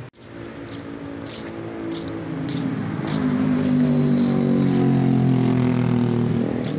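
A motor vehicle's engine running close by, growing louder over the first three seconds and then holding a steady low hum, with a few faint clicks over it.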